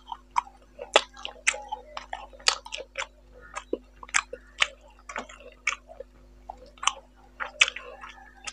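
Close-miked chewing of rice and boal fish curry: a quick, irregular run of wet mouth clicks and smacks.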